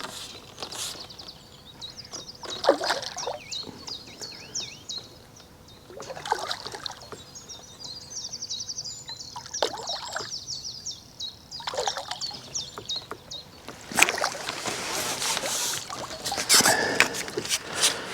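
Water splashing and trickling in short bursts, with a longer, louder stretch of splashing near the end.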